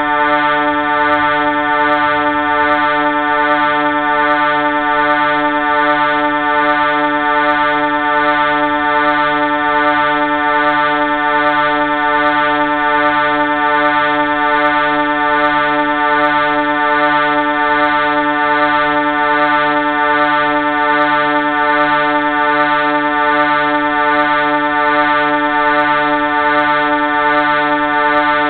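Train horn held in one long, unbroken chord of several steady notes.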